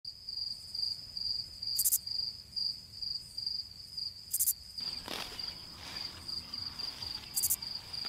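Insects chirping outdoors: a high, pulsing trill repeating about three times a second, with soft rustling from about five seconds in.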